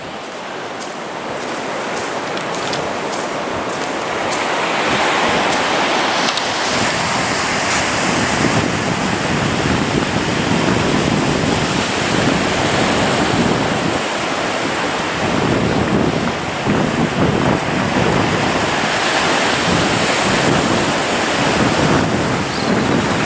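Ocean surf rushing onto the beach, mixed with wind on the microphone. It is a loud, steady rush that swells about five seconds in and then rises and falls in slow surges.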